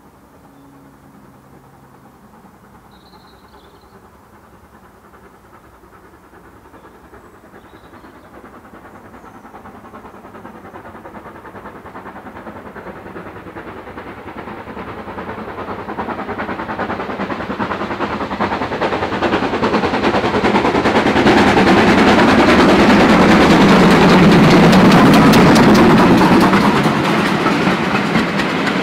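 GWR Large Prairie 2-6-2 tank steam locomotive No. 4144 approaching and passing, its exhaust beats growing steadily louder over about twenty seconds to a peak as it goes by. Near the end its carriages roll past with a rhythmic wheel clatter.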